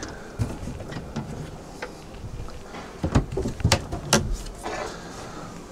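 Caravan overhead locker flaps being lifted open one after another: handling noise with a few sharp clicks and knocks of the flaps and their hinges about three to four seconds in.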